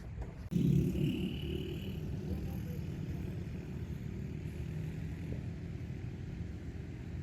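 A machine's engine rumbles steadily after starting up abruptly about half a second in, with a brief high whine over it at first.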